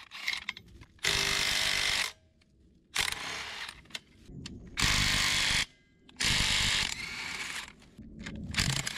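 Handheld power tool running in several short bursts of about a second each, with brief pauses between them.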